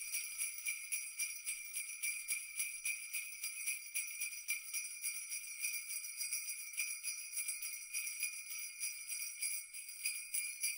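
Sleigh bells jingling quietly in a quick, even shake, a bright high ringing with nothing low beneath it.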